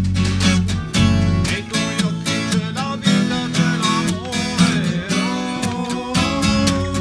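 Black steel-string acoustic guitar strummed hard in a fast, steady rhythm, with a few notes bending in pitch in the middle.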